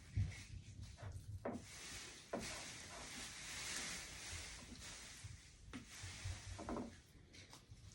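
Raw chicken breasts being put into a bowl of marinade: a few soft knocks and a faint rustle in the middle, as of plastic packaging being handled.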